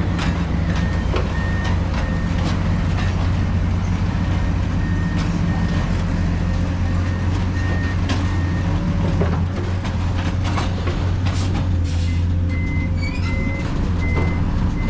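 Heavy truck's diesel engine running steadily while its reversing alarm beeps over and over, with a few sharp knocks and clanks.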